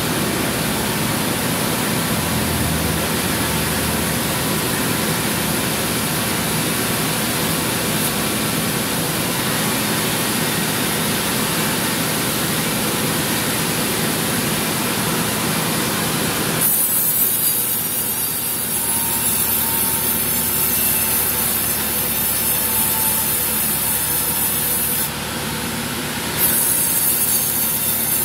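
Band saw mill running and sawing teak. About two-thirds of the way in the sound changes abruptly, taking on a strong high hiss, and it dips briefly near the end.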